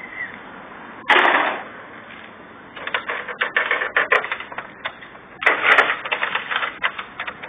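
Rapid clattering clicks from a bicycle wheel being spun and jostled, typical of a freewheel hub ratcheting, while a small dog goes for the wheel. Two loud rough bursts stand out, about a second in and again about two-thirds of the way through.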